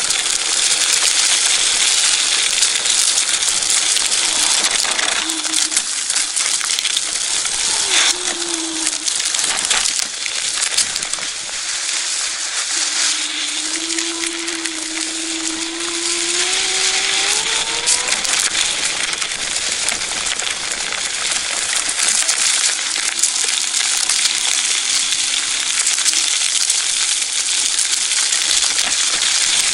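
Dragon GTRV2 electric scooter riding over a dirt trail: tyres crunching over dirt, leaves and sticks, with constant clattering rattles from the scooter. About halfway through, the electric motor's whine rises in pitch as the scooter speeds up.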